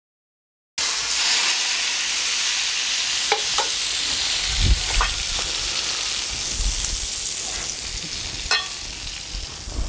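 Hot oil sizzling on the chili-flake and garlic topping of a bowl of Sichuan boiled beef, a steady hiss with a few sharp crackles, starting about a second in.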